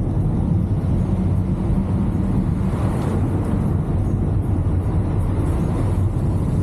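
2023 Chevrolet Camaro SS driving at a steady pace: an even, low rumble of its V8 engine and road noise that holds level throughout.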